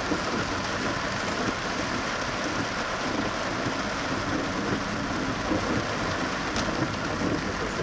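Heavy downpour drumming steadily on a car's roof and windshield, heard from inside the moving car.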